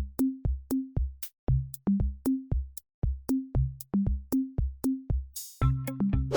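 Electronic background music: a steady drum-machine beat with short plucked bass notes. About five seconds in, a brief cymbal-like swish leads into held synth and bass notes under the beat.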